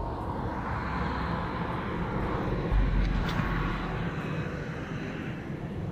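A passing vehicle: a steady rush of engine and tyre noise with a low rumble, swelling toward the middle and easing off again.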